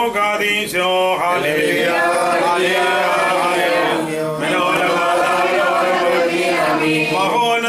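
Men's voices chanting a hymn of the Syriac-rite evening prayer together on a slow melody, with a brief break about four seconds in. At the very start a single voice is still reciting on a held note.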